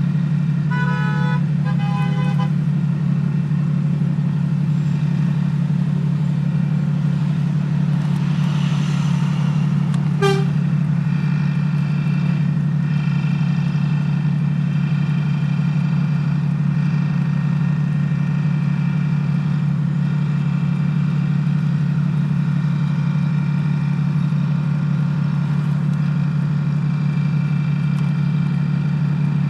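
Jeep XJ's exhaust, with no catalytic converter and no muffler, droning steadily and loud. A few short horn toots sound near the start.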